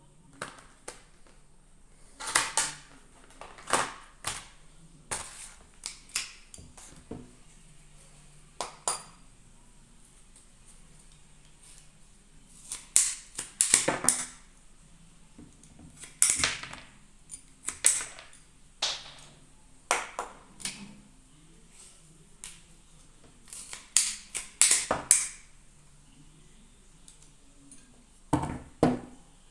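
Ratchet garden secateurs with an aluminium body and SK5 high-carbon steel blade, clicking and snapping. The sharp clicks come irregularly, some singly and some in quick runs of two to four.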